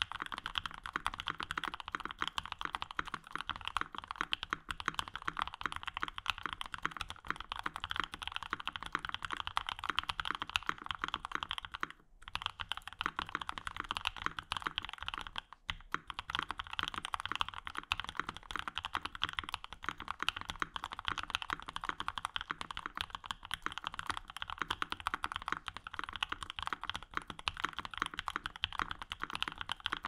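Steady, dense typing on a custom mechanical keyboard: an Ogre aluminum case with a full UHMWPE plate, lubed linear switches (Alpaca housings with Cream stems) and Cherry G81-3100 keycaps. The stream of keystrokes breaks off briefly twice, about twelve and fifteen and a half seconds in.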